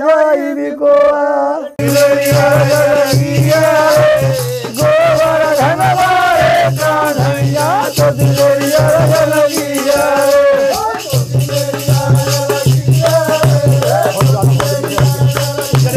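Men singing a Holi folk song. About two seconds in, a drum and hand percussion start playing a steady beat under the voices.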